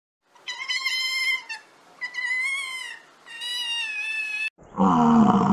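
Otter giving three high-pitched, wavering calls, each about a second long. About four and a half seconds in, a louder, low-pitched bison call begins and is still going at the end.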